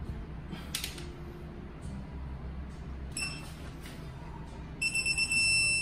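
Hand tightening on a motorcycle final drive: a light metallic clink, then high electronic beeps from a digital torque wrench. One short beep comes about three seconds in, then quick beeps run into a steady beep near the end as the set torque is reached.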